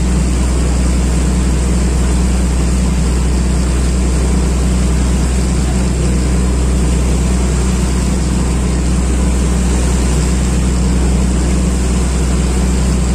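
Boat engine running steadily at constant speed, a loud, unchanging low drone with a steady hiss over it.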